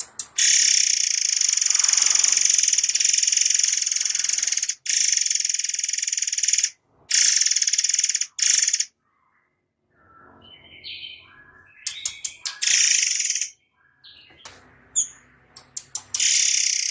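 Murai songbird singing long, loud, rapid-fire trilled volleys of several seconds each, the tight 'tembakan' bursts, broken by a quieter stretch of short varied notes before another long volley near the end.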